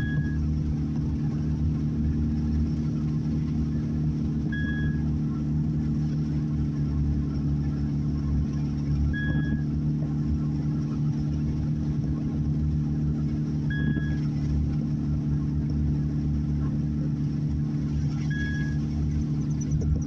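Steady engine and tyre hum heard inside a car's cabin while driving at an even speed. A short high beep repeats about every four and a half seconds.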